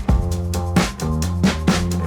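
Background music with a steady drum beat and a funky bass line.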